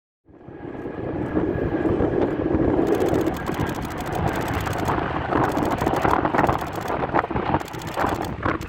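Boeing 787-8 jet engines running, a steady rumble with a faint whine over the first few seconds. Wind buffets the microphone in gusts from about three seconds in.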